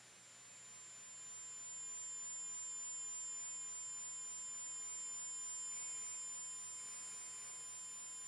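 1 kHz square-wave test tone through the tube amplifier: a steady buzzy tone that grows louder over the first two seconds as the amplifier volume is turned up, then holds.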